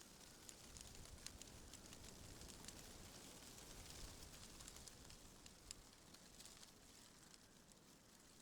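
Faint rustling of tree leaves in the wind: a soft steady hiss broken by many small crackling ticks.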